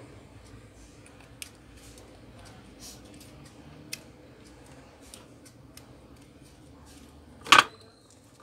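Small plastic clicks and handling noises as SATA data and power cable connectors are pushed onto a hard drive, with one louder sharp knock near the end, after which a faint steady high tone begins.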